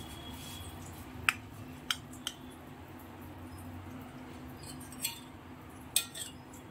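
Stainless-steel slotted spatula clinking against a steel pan and plate while lifting pieces of fried fish: about six sharp, irregularly spaced clinks over a faint steady hum.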